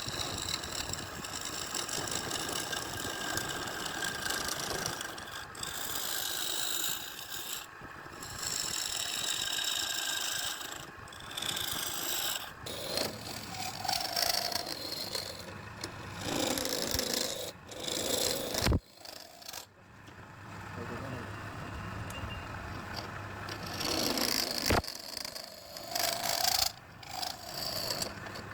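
Wood being cut on a lathe: a tool scraping and rasping against spinning wood, with the machine running. The sound changes abruptly twice.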